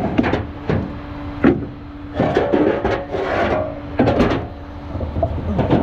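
Wooden 2x4 boards being pulled out and handled: a series of hollow knocks as they strike each other, with a scraping slide of wood on wood about three seconds in.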